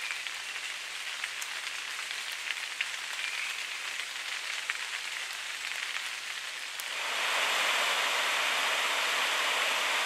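Rain pattering and dripping on forest leaves, with scattered small drop ticks. About seven seconds in this gives way to the louder, steady sound of a mountain stream running over a small cascade.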